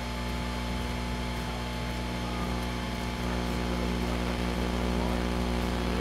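Home-built multi-magnetron microwave rig running with a steady electrical hum from its microwave-oven transformers. The hum gets louder about three seconds in.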